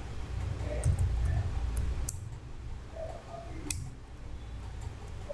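A few scattered clicks from a computer keyboard and mouse while data is typed into table cells, over a steady low background rumble.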